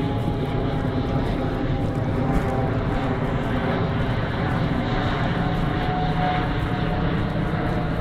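Aircraft flying over, a steady, loud engine rumble with a faint tone that drifts slowly in pitch.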